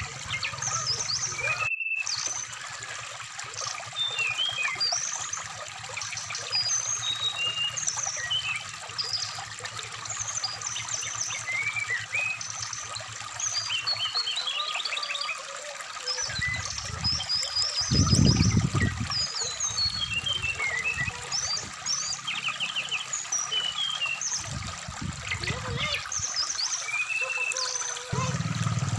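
Brown-chested jungle flycatcher song, short high whistled and twittering notes scattered throughout, over a steady stream of running water. A low rumble from the water swells in the second half and breaks off near the end.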